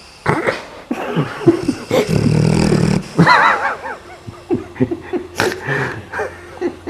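A large Japanese Tosa dog snoring in its sleep, in irregular snorts with a long low snore about two seconds in, then a short wavering higher sound.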